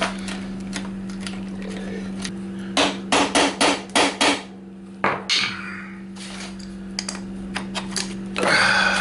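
Hammer blows on the handle of a screwdriver seated in a rusted moped crankcase screw, shocking the screw loose. There is a quick run of about six sharp strikes about three seconds in, then a single strike a second later.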